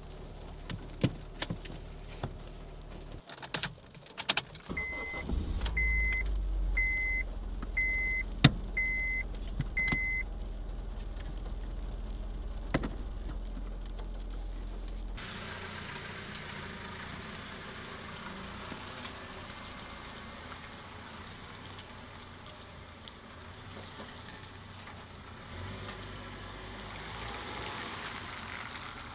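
Clicks of a seatbelt buckle and keys inside a Honda Civic, then the engine starts about five seconds in and idles with a low steady hum, while six short electronic beeps chime about once a second. About halfway through the sound changes to a steady wet hiss of rain and tyres on wet pavement as the Civic drives off.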